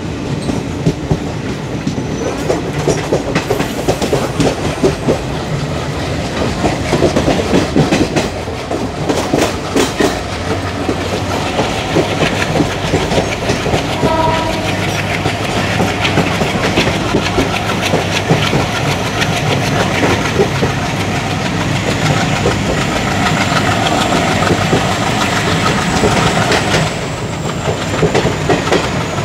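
Wheels of ICF passenger coaches running over the rail joints at speed, a continuous clickety-clack over a steady rumble. A faint high whine rises and falls through the second half.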